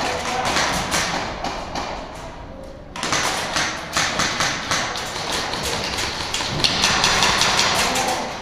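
Airsoft guns firing in rapid, irregular clicks and taps. The firing dies down briefly and comes back sharply about three seconds in.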